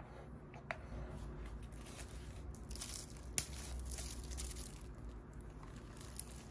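Thin plastic wrapper crinkling and tearing as a drinking straw is unwrapped, with one sharp click about halfway through.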